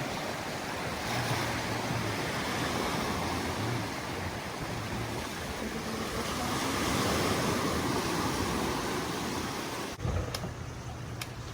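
Sea surf washing on a beach as a steady rushing noise, with some wind on the microphone. Near the end it switches abruptly to a quieter low hum with two sharp clicks.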